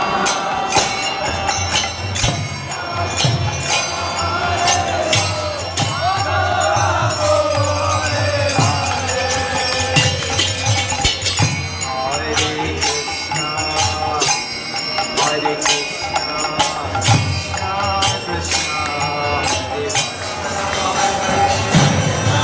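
Devotional kirtan: voices chanting together over hand cymbals (kartals) struck in a steady beat and a drum.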